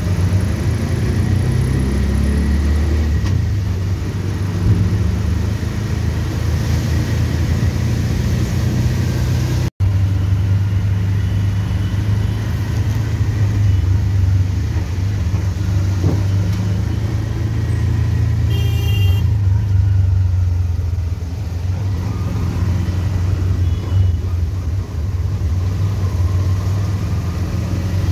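Auto rickshaw engine running with a steady low hum during a ride, with a short high-pitched beep about two-thirds of the way through.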